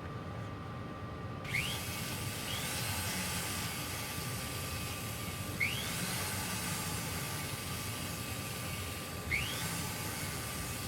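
A rotary polishing wheel runs with a steady hiss that starts about a second and a half in, polishing a riveted metal clasp. Short rising squeaks come three or four times, each with a small jump in loudness.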